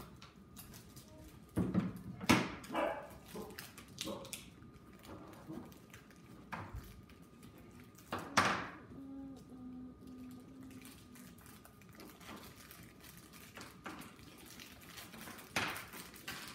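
Plastic candy wrappers crinkling and small items knocking on a wooden table as children handle them, with a few louder knocks about two seconds in and again about eight seconds in. A short run of faint low tones sounds about nine seconds in.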